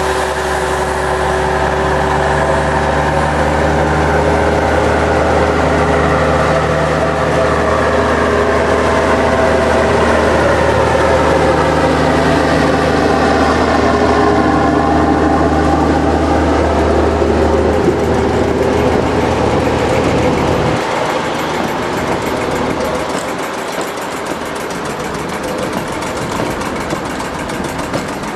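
Vintage Sprague-Thomson metro train running slowly past: a steady mechanical drone and whine from the motor cars, with the whine dropping in pitch as the train goes by. A low hum cuts off about three-quarters of the way through, leaving the lighter running noise of the trailing cars.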